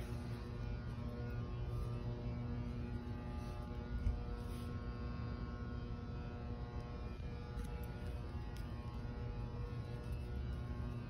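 Steady low hum of a large, empty indoor building, with faint steady tones over it. A single soft knock about four seconds in.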